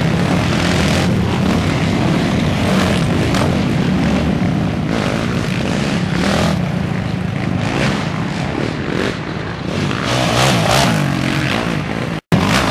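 Racing quad (ATV) engines running hard at high revs as the quads pass close by one after another, the engine pitch rising and falling as riders accelerate and back off. The sound breaks off for a moment just before the end.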